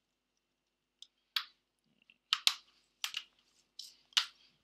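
Small tools and plastic parts being handled on a hard desk: a scattered run of sharp clicks and taps, the loudest in the second half, as a precision screwdriver is set down and the small plastic parts trays are handled.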